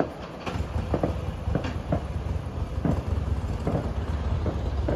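Fireworks going off: a quick irregular series of sharp bangs and crackles over a low, steady rumble that swells about half a second in.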